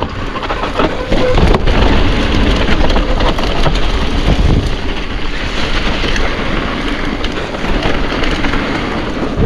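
Mountain bike rolling down a rough trail: tyres crunching over stones and the bike rattling, with a heavy low rumble that stays loud throughout and many small clicks and knocks.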